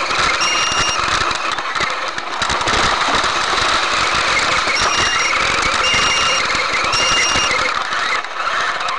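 Electric RC crawler driving over forest leaf litter: a dense rattling, scraping noise from its drivetrain and tyres, with a steady motor whine coming and going in four short bursts of throttle.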